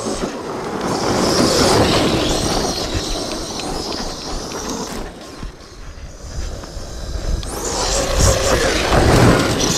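Electric motor of an Arrma Outcast 8S RC truck whining up and down as it speeds and slows on a dirt track, with its tyres churning through loose dirt. The whine climbs to a peak about a second in and again near the end.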